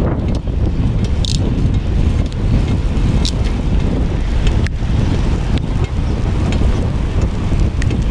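Wind buffeting the microphone of a camera riding along on a moving bicycle, a loud steady rumble heaviest in the low range. A few short sharp clicks sound through it at irregular moments.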